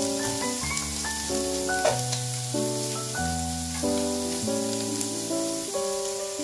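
Food sizzling as it fries in a pan. Over it plays background music of held chords that change every second or so.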